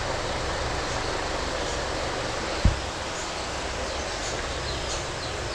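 Steady rushing background noise, with a single short low thud about two and a half seconds in.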